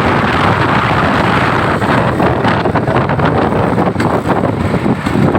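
Steady rushing wind on the microphone over the noise of a moving road vehicle, with no horn melody.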